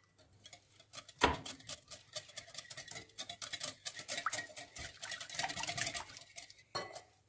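Wire whisk beating a thin batter of egg, sugar, oil and milk in a glass bowl: rapid, uneven ticking of the wires against the glass with a wet swishing, starting about a second in and stopping shortly before the end.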